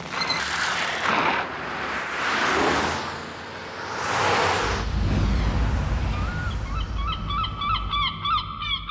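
Cartoon sound effects: a few whooshing swishes, then a low rumble, and from about six seconds in a bird calling in quick, repeated chirps that carry on steadily.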